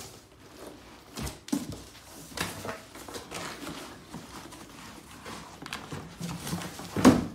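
Unpacking handling noise: a plastic bucket in plastic wrap being pulled from a cardboard box, with rustling, scraping and scattered knocks, and a louder knock near the end.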